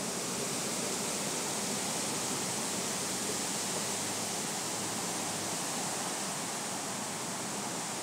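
Wind blowing through a tree's leafy canopy: a steady hiss of rustling leaves with no pause or gust break.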